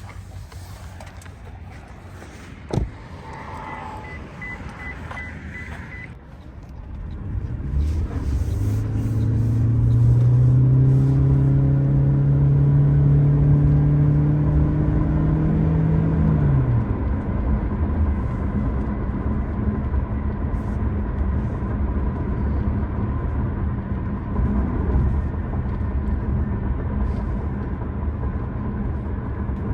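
2025 Toyota Prius hybrid: after a click and a short run of high beeps, the 2.0-litre four-cylinder petrol engine cuts in about seven seconds in and runs under acceleration, its pitch climbing slowly. It drops away about sixteen seconds in, leaving steady road noise and a faint steady whine.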